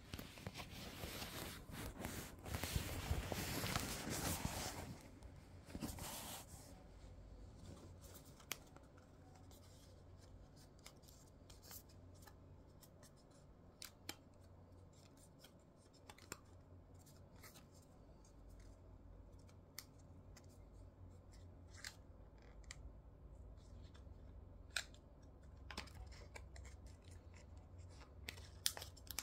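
Packaging being handled and opened: a few seconds of loud rustling near the start, another short rustle shortly after, then scattered light clicks and taps.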